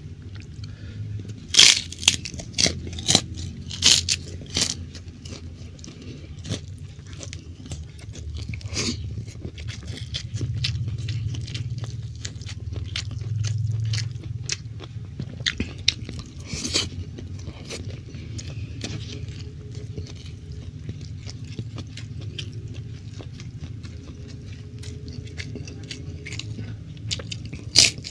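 Close-miked chewing and mouth sounds of a person eating soy-sauce stir-fried beef with rice: many sharp wet clicks and smacks, thickest in the first five seconds and again near the end, over steady chewing.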